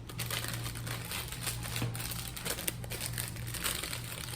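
Plastic snack wrapper being handled, crinkling and crackling in many small irregular clicks, over a steady low hum.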